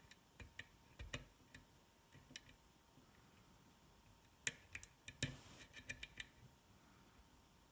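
Small metal lock picks clicking and clinking as one pick is put down and a slimmer one taken up and set in the lock. A few light clicks come first, then a quick, louder cluster of clicks past the middle.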